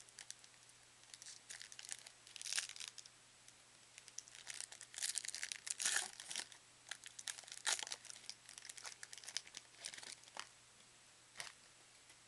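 Foil wrapper of a football trading card pack being torn open and crinkled by hand, in irregular crackling bursts.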